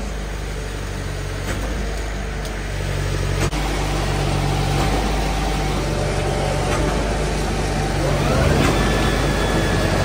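Concrete mixer truck's engine revving up to spin the mixer drum faster, getting louder and higher in a step about three and a half seconds in and again near the end. Speeding the drum up this way confirms the drum is empty of concrete.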